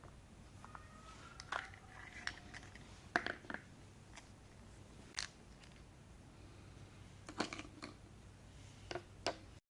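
Small plastic toy kitchen pieces being handled and set down: scattered light clicks and taps, with a faint thin squeak about a second in.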